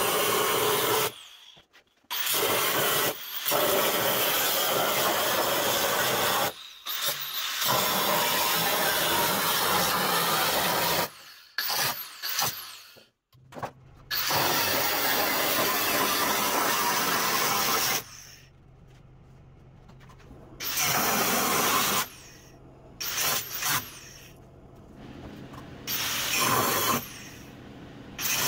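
Angle grinder stripping rust and old paint off a steel pickup tailgate, run in long loud passes with short breaks between them. The passes get shorter and the gaps longer in the second half, where a low steady hum carries on in the gaps.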